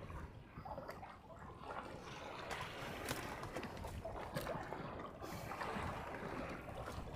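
Water sloshing and lapping against the hull of a small boat at sea, with a few faint knocks.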